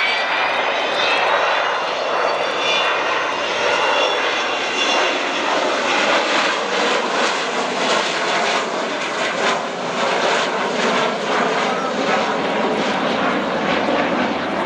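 Avro Vulcan bomber's four Rolls-Royce Olympus turbojets on a low flypast: a high whine climbing in pitch over the first five seconds or so over heavy jet noise, then a broad jet rumble with a crackle as the aircraft moves away.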